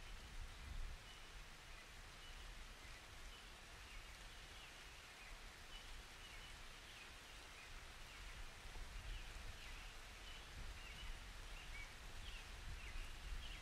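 Faint outdoor ambience: a steady low hiss with scattered faint, short high chirps.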